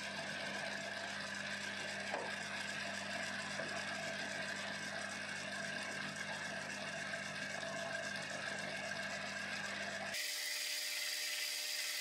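Lathe spinning a cloth polishing wheel: a steady motor hum with a whine, as green GOI polishing paste and then a steel channel are pressed against the wheel. About ten seconds in, the sound changes suddenly to a higher, hissier whir as the deep hum drops away.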